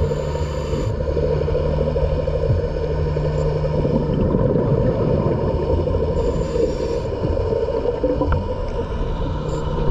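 Underwater ambient noise through a camera housing: a steady low drone with a constant hum, and brief hisses near the start and about six seconds in.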